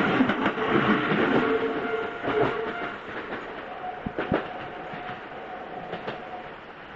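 A train passing over a level crossing: its loud running noise fades after about two and a half seconds, followed by a few sharp clacks of wheels over the rail joints.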